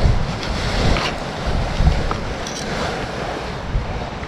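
Wind buffeting the microphone in irregular low gusts over the steady wash of river waves against a seawall, with a few faint clicks.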